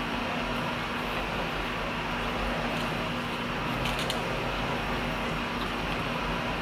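Steady background hum and hiss of room noise, with a few faint soft clicks about four seconds in.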